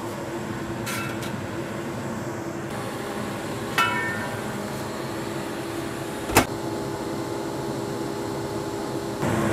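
Steady low fan hum in a kitchen. A short ringing clink comes about four seconds in and a sharp knock about six seconds in.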